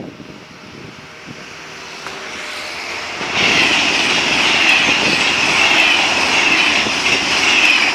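NTV Italo high-speed electric train (AGV) passing at speed: a rushing noise builds over the first three seconds, then turns into a loud, steady rush with a high hissing edge as the train goes close by.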